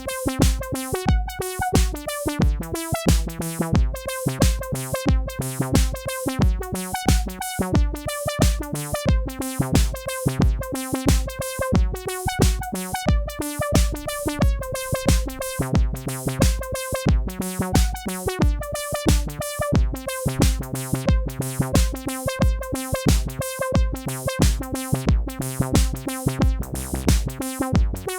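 Behringer DeepMind 12 analog polysynth playing a preset melodic line over a Roland TR-8 drum machine beat. A steady four-on-the-floor kick lands about twice a second under held and stepping synth notes.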